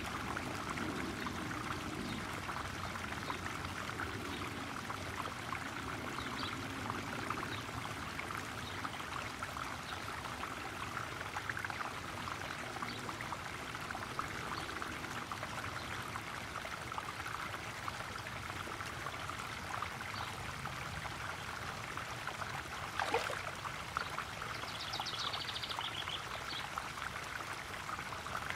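Garden pond waterfall running steadily, water splashing and trickling into a koi pond, with a short high trill near the end.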